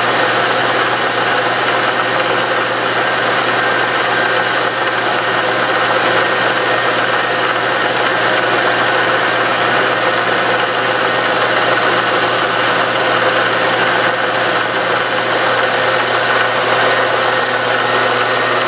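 Milling machine running a 60-degree dovetail cutter through a metal block: a steady machining sound from the spindle and the cut, with several steady tones, that holds level throughout.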